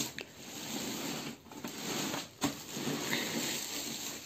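Clear plastic packing bag around a printer rustling and crinkling as the wrapped printer is handled and shifted, in uneven scraping rustles with brief pauses.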